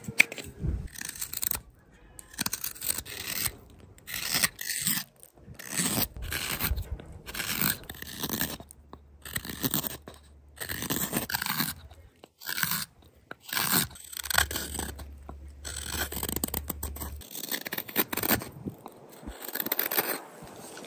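Hook knife carving out the bowl of a wooden spoon: a long series of short scraping, shaving cuts in the wood, coming in quick runs with brief pauses between them.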